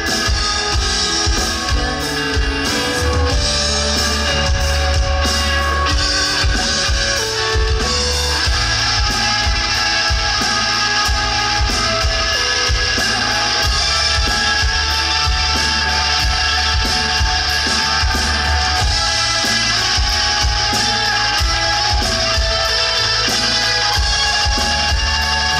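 Live rock band music: electric guitar over bass and a drum kit keeping a steady beat.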